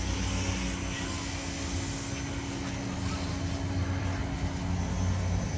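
A steady low mechanical drone with a constant hum.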